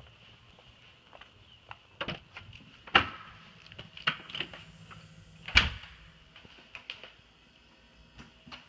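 A door being opened and shut: a run of sharp clicks and knocks, the two loudest about three seconds and five and a half seconds in.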